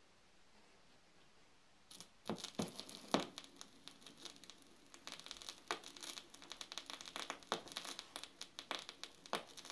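Stylus of a 1964 KLH Model 11 portable phonograph's Garrard turntable set down on a vinyl record about two seconds in, then irregular crackle and pops as it rides the lead-in groove.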